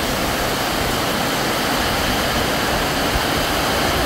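Heavy rain pouring down steadily: a dense, even hiss with no let-up.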